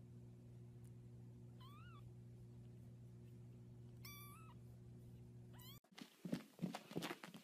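Small ginger kitten giving three short, thin, high mews over a steady low hum. After a cut near the end come a few soft thumps.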